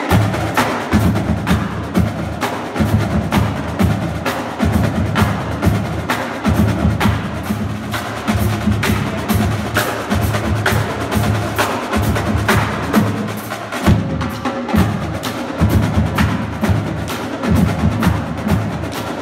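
Marching drumline playing: snare drums, tenor drums and a line of pitched bass drums, with cymbals, in a loud, fast rhythmic passage that starts abruptly.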